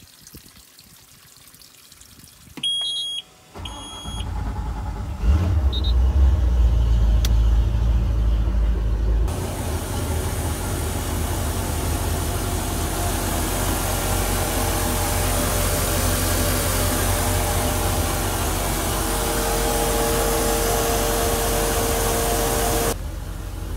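Two short electronic beeps, then a MerCruiser 350 MAG 5.7-litre V8 inboard cranks for about a second and a half and catches. It runs loudest for the first few seconds after catching, then settles into a steady idle as it warms up, running with a flushing muzzle on the drive.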